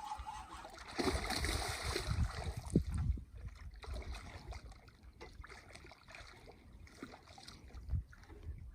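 Water splashing and sloshing, loudest for a couple of seconds about a second in, then irregular and quieter, over a low rumble of wind on the microphone.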